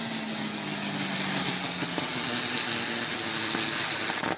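Butterfly firecracker spinning on the ground, its burning charge giving a loud steady hiss with a low humming tone underneath. The hiss cuts off suddenly near the end as it burns out.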